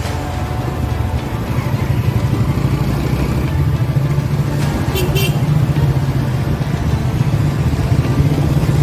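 1960 Royal Enfield Bullet's single-cylinder engine running with a steady, fast low pulse.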